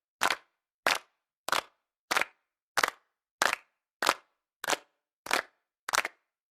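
A small group of people clapping in unison: single sharp claps, slightly ragged as the hands land a fraction apart, about one and a half a second, ten in all, with silence between them.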